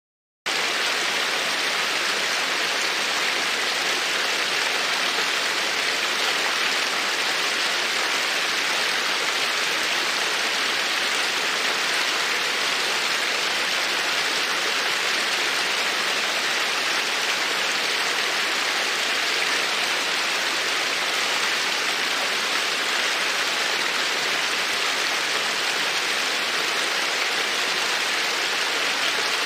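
Dense, steady hiss like rain or rushing water, cutting in abruptly just after the start and holding an even level with no distinct pops or crackles.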